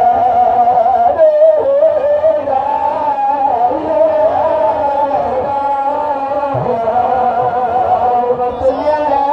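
A man's voice singing a slow melody into a microphone, with long held, ornamented notes.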